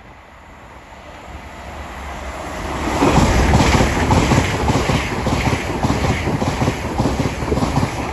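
LNER Azuma high-speed train passing through the station, growing louder over the first three seconds and then a loud steady rush of wheels on rail and air as the carriages go by.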